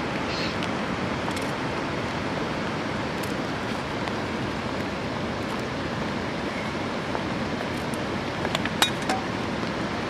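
A steady hiss of background noise, with a few light clinks against an aluminium plate as potatoes are peeled with a knife over it, near the end.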